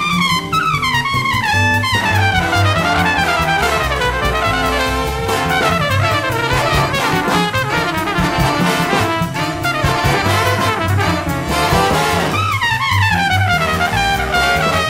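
Big band jazz: a brass section of trumpets and trombones plays over a bass line, with falling runs near the start and again about twelve seconds in.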